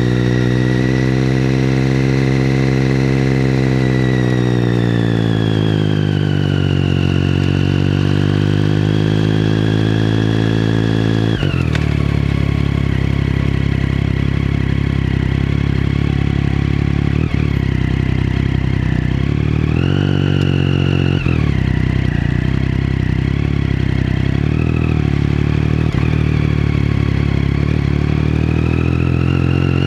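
2012 Triumph Street Triple 675R's inline-three engine through a MASS aftermarket exhaust, running at low, steady riding revs that sag and pick up again. About eleven seconds in the revs drop suddenly to a lower, near-idle note, with short throttle blips around twenty seconds and again near the end.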